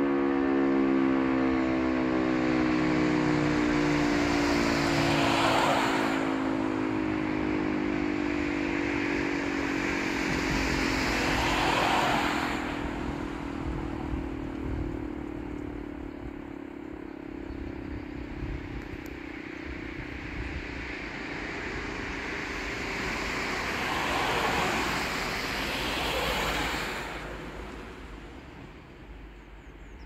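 E57 electromechanical civil-defence siren winding down at the end of a test alarm, its tone falling slowly in pitch and fading over about twenty seconds. Three swells of rushing noise come over it, about five, eleven and twenty-five seconds in.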